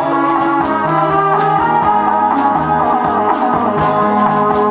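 Instrumental backing music for a song, with a steady bass beat under a guitar-like melody line, between sung lines.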